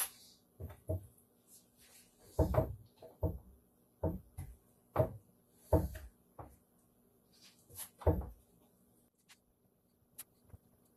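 Irregular wooden knocks and thumps as glued cabinet panels are pushed and fitted together onto dowels. About eight thuds come at uneven intervals, with the heaviest around a quarter, half and three-quarters of the way through.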